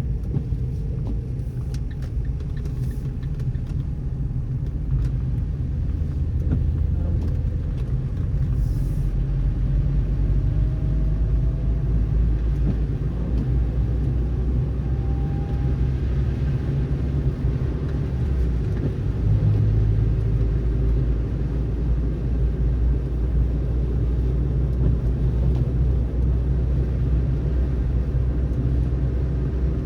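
Car driving at steady speed: a continuous low rumble of engine and tyres on a snowy road.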